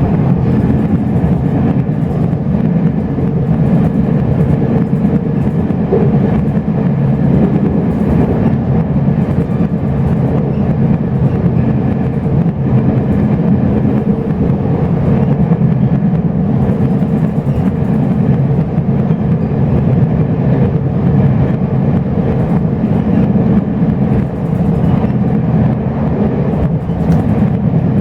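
Chu-Kuang express passenger train running steadily, heard from inside the coach: an even, unbroken low rumble of the carriage on the rails.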